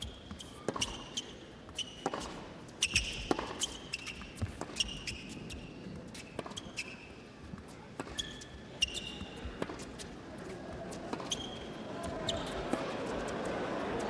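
Tennis rally on an indoor hard court: repeated racket strikes and ball bounces with short high shoe squeaks, and crowd noise swelling over the last couple of seconds.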